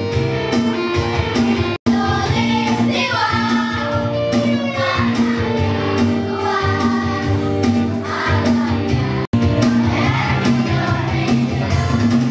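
A group of children singing together over music with guitar, the voices coming in strongly a couple of seconds in. The sound cuts out for an instant twice.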